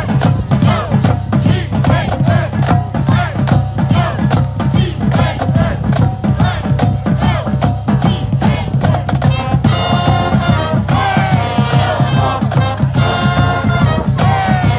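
High school marching band playing, with a driving drumline and shouted chanting voices over it. About two-thirds of the way in, the sousaphones and horns come in with held notes.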